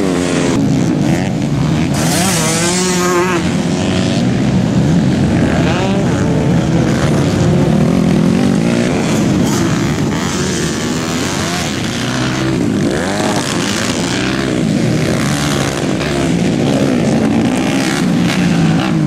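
Several off-road dirt bike engines racing at once, revving up and down as the bikes accelerate out of corners and roll off, with overlapping rising and falling engine notes.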